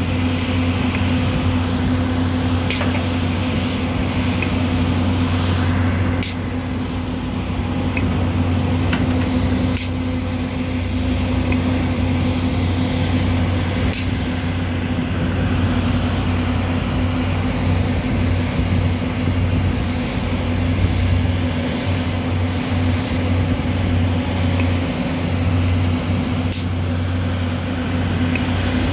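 Volvo EC210B LC excavator's six-cylinder diesel engine and hydraulics working steadily under load while the bucket digs, a loud constant drone with a deep hum. Sharp clicks come every few seconds.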